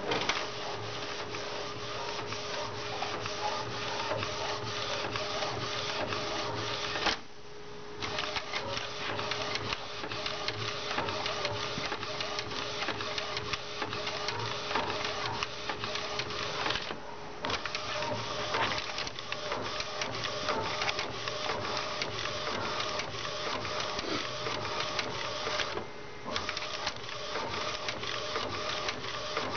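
Epson T1100 direct-to-garment printer printing: the print head carriage shuttles back and forth with a continuous fast clatter of clicks. Three short pauses fall roughly ten seconds apart.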